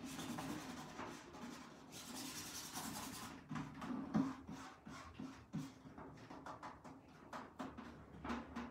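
Hands rubbing and pressing an adhesive silk-screen stencil down onto a curved metal bucket: a soft scuffing for about three seconds, then a string of light clicks and taps.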